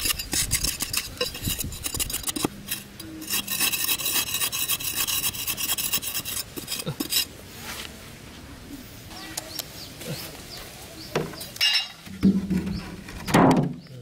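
A knife blade scraping and stabbing into dry sandy soil, digging a hole, with gritty rasps and clicks as loose dirt is loosened and scooped out. Near the end come a few louder knocks and rustles.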